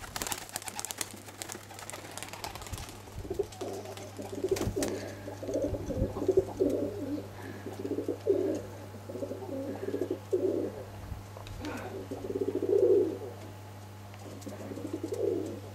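Domestic roller pigeons cooing over and over in low, repeated bursts, with a rustling noise at the start and a few light knocks.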